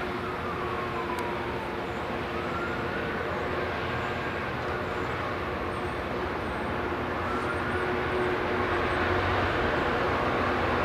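Class 66 diesel-electric locomotive running under load as it approaches at the head of a freight train, its two-stroke EMD V12 engine growing louder near the end. A higher whine rises and falls in pitch over the engine note.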